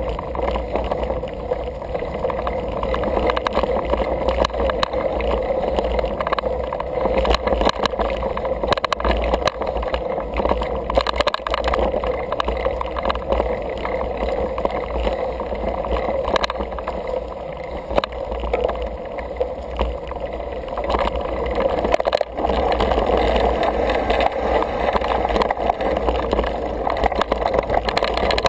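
Single-speed 29er mountain bike riding a dirt singletrack: steady rolling rumble from the tyres on the trail, with many small rattles and clicks over bumps. It gets louder about three quarters of the way through.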